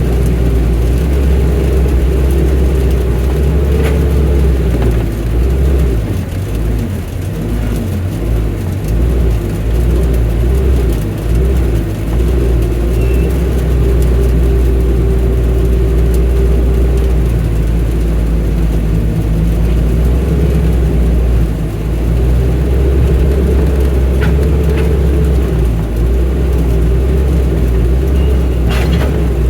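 Excavator's diesel engine running steadily under load, with a higher tone above it that rises and falls as the machine works. The engine eases off briefly a few seconds in, then picks up again.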